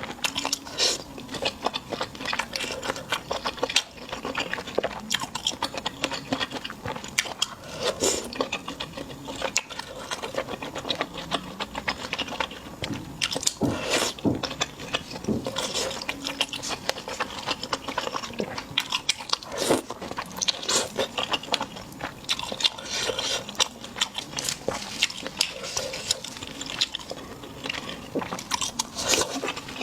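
Close-miked biting and chewing of crunchy food, with many sharp, irregular crunches.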